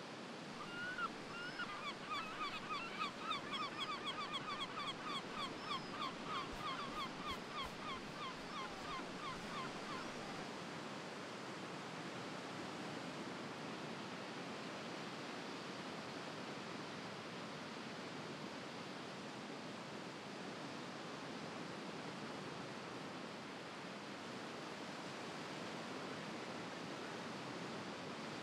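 A gull gives a long series of quick, repeated calls, about three a second, that stops about ten seconds in. Steady surf hiss runs underneath throughout.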